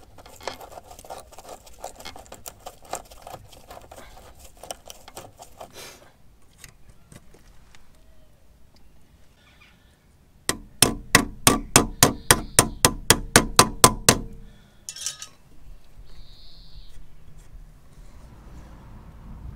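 Ratcheting spanner clicking in quick, even strokes, about five a second for some three and a half seconds, as a brake hose fitting is tightened. Before that, light irregular metallic clicks of small brake parts being handled.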